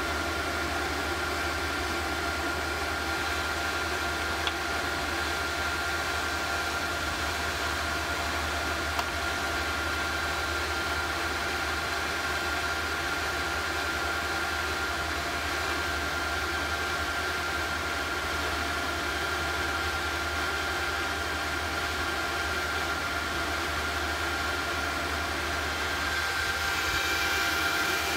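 Small induction heater running steadily while melting bronze in a graphite crucible: a constant low hum with a few steady high tones over an even noise. It grows slightly louder near the end, where another higher tone joins in.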